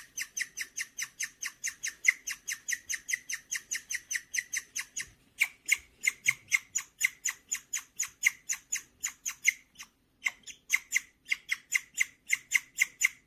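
Guinea pig chirping: a fast run of short, high, bird-like chirps, about four a second, with two brief breaks about five and ten seconds in. The owner takes this chirping for a sound the guinea pig makes when it is happy.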